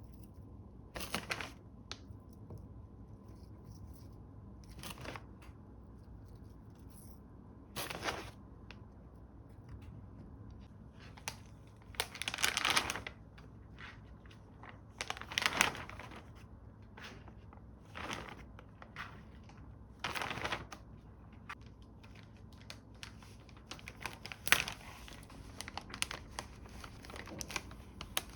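Plastic bags or wrap being handled, rustling and crinkling, with some tearing, in short irregular bursts over a low room background.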